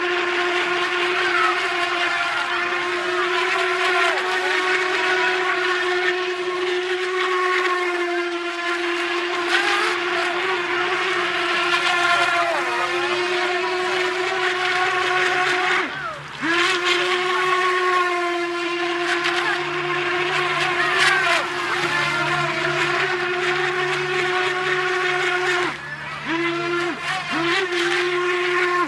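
Two radio-controlled model racing boats running at speed: a steady, high-pitched motor whine that wavers in pitch as they turn, dropping out briefly about sixteen seconds in and twice more near the end.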